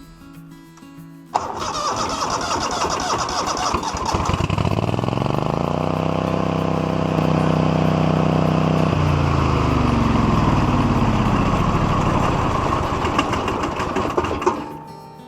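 Electric wheelchair motor driving the chainsaw mill's carriage lift, starting abruptly and running with a whine that rises in pitch, holds steady, then falls away before cutting out near the end.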